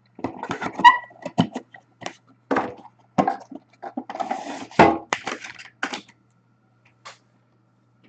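Trading cards and their packaging being handled: irregular clicks, taps and crinkling rustles, which stop about six seconds in.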